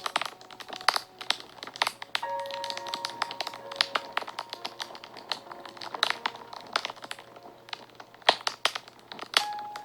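Fire crackling and snapping, with many irregular sharp pops, a few louder ones about a second in and near the end. Soft background music with long held notes plays underneath.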